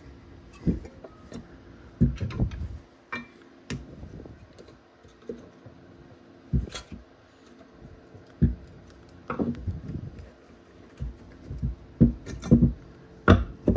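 Screwdriver prying an old brake pad out of a disc brake caliper bracket: irregular metallic clicks, scrapes and knocks of the tool, pad and bracket, with louder knocks about two seconds in, midway, and close together near the end.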